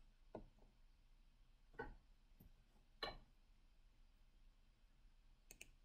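Near silence in a small room, broken by four faint, short clicks spread a second or more apart.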